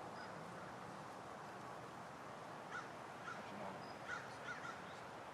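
Short bird calls, about five in quick succession starting around three seconds in, faint over a steady outdoor background hiss.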